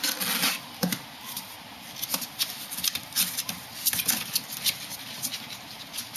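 A ferret's claws scrabbling and scratching on a cardboard box and a wooden floor as it moves about and scrambles out: a busy patch of scratching at the start, then scattered taps and scrapes.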